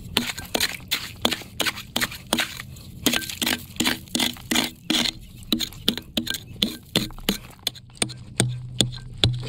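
Pickaxe chipping into rock and gravel: short, quick strikes of the metal head on stone, about three a second.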